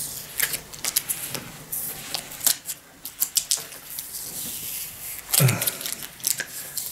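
Fingernails scratching and picking at a sticker label on a plastic shampoo bottle while peeling it off: a run of small scratches and clicks, with one louder rustle about five and a half seconds in.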